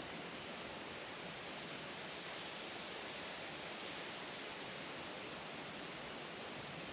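Steady, even rush of running stream water.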